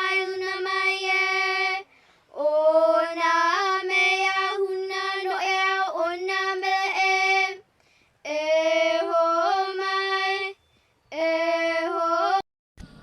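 A single high singing voice, a woman's or child's, holding notes and gliding between them. It sings in four phrases separated by short, near-silent gaps.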